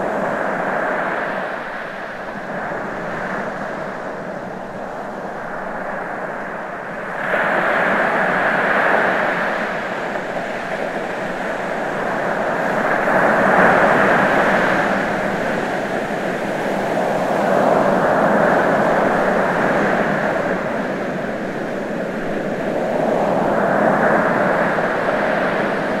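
Ocean surf: a steady rush of breaking waves that swells and ebbs every few seconds, with a sudden louder surge about seven seconds in.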